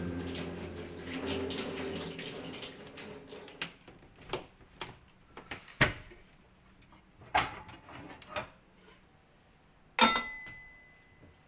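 Water running from a tap fades out over the first few seconds. Then come scattered light clicks and knocks of dishes or utensils being handled, and about ten seconds in, one sharp clank that rings briefly.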